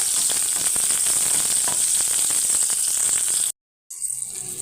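Garlic and onion sizzling and crackling in hot cooking oil. About three and a half seconds in the sound drops out completely for a moment, then the frying comes back somewhat quieter.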